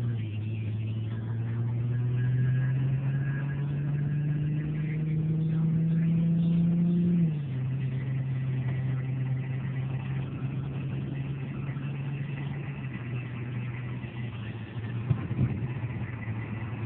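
Infiniti G37's naturally aspirated 3.7-litre V6 heard from inside the cabin. The engine note climbs steadily under acceleration for about seven seconds, drops suddenly as the automatic transmission upshifts, then holds a steady cruise, with a few light knocks near the end.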